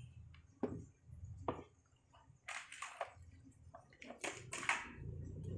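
Handling noises: two sharp clicks, then short scraping, rustling bursts.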